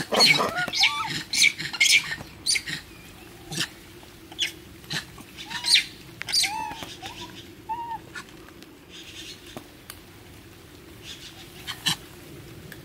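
Monkeys giving short, high-pitched squealing calls, thick and overlapping in the first second or two, then scattered, with sharp clicks among them.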